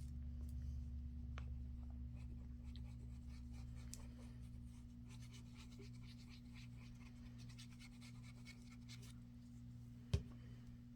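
Faint rustling and scratching of paper being handled and smoothed down by hand during gluing, with one sharp tap about ten seconds in, over a steady low hum.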